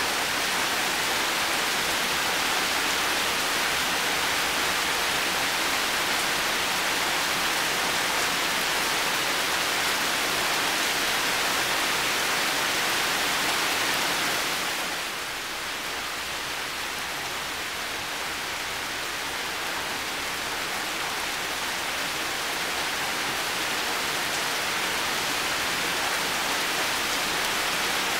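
Heavy rain falling as a steady hiss. About halfway through it eases a little and sounds softer, then builds back up towards the end.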